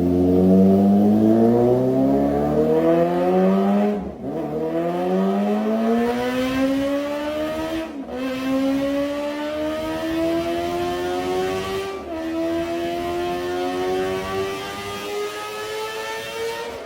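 Kawasaki Ninja ZX-25R's 250 cc inline-four engine accelerating hard, its pitch climbing steadily. Three times, about four seconds apart, it drops back briefly and then climbs again.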